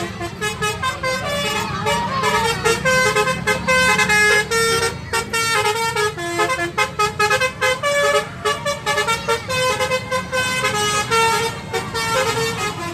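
Tour bus's basuri telolet horn, a set of multi-note air horns, playing a quick tune of short stepped notes over a low rumble.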